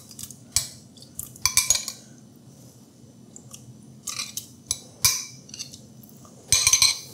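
Metal spoon scraping and knocking against a glass bowl as diced tomatoes are scooped out and dropped into a stainless steel mixing bowl: a handful of short clinks and scrapes with pauses between, with soft wet plops of tomato.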